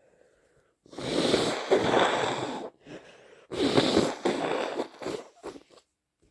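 A person blowing their nose hard into a tissue twice, each blow lasting nearly two seconds, followed by a few short nasal bursts near the end.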